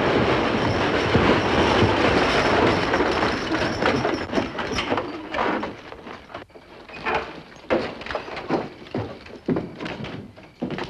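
Horse-drawn buckboard wagon on the move: a dense rattle of wheels and hooves that thins after about five seconds into separate, irregular clops and knocks.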